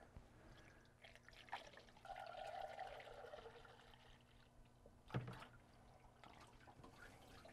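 Antifreeze poured from a jug through a funnel into an engine block, a faint trickling pour, with a single thump about five seconds in.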